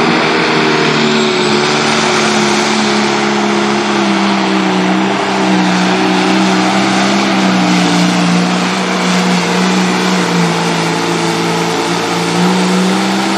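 Turbocharged pulling-tractor engine at full throttle under heavy load while dragging a weight-transfer sled, running as one loud steady drone. Its pitch sags slightly mid-pull and climbs back near the end.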